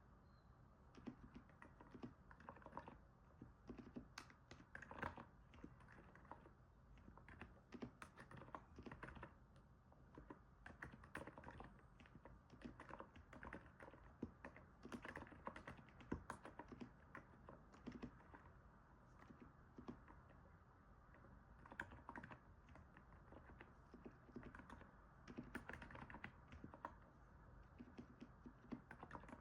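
Steady typing on a NIZ 68 Pro capacitive keyboard, starting about a second in: a quick, irregular run of soft keystrokes with short pauses, a sound likened to stepping on snow.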